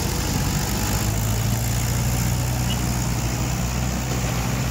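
Mahindra 575 XP Plus tractors' four-cylinder diesel engines running steadily with a low, even drone.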